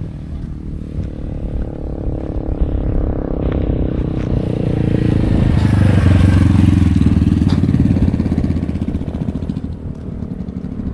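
A motorcycle passing close by: its engine grows louder over a few seconds, peaks around the middle, then fades away.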